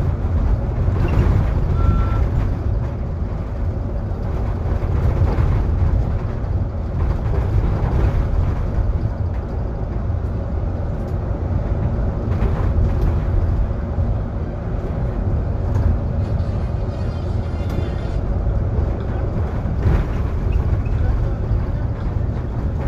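Interior of a Solaris Urbino 18 IV articulated bus under way: steady low engine and road rumble, with scattered short creaks and knocks from the squeaking articulation joint.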